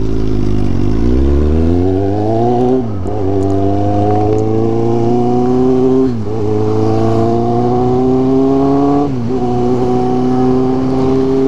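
Kawasaki Z750 inline-four motorcycle engine accelerating hard from a standstill. The pitch climbs steadily, drops briefly at each of three upshifts about 3, 6 and 9 seconds in, then holds steady at cruising speed.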